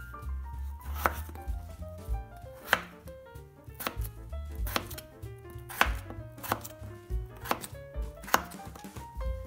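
Chef's knife chopping a peeled potato into cubes on a bamboo cutting board. There are about eight sharp knocks of the blade striking the board, unevenly spaced at roughly one a second.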